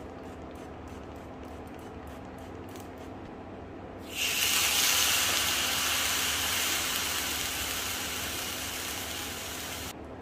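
Raw meat landing in a hot, oiled cast-iron skillet about four seconds in and sizzling loudly, the sizzle slowly fading until it cuts off abruptly near the end.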